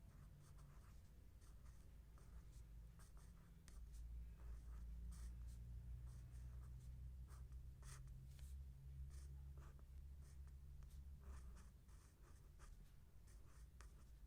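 Faint scratching of a pen writing on paper, in short irregular strokes as Thai letters are written out, over a steady low hum.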